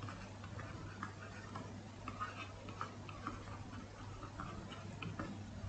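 Faint irregular ticks and light scratches of a stylus tip on a tablet surface as words are handwritten, several a second, over a low steady hum.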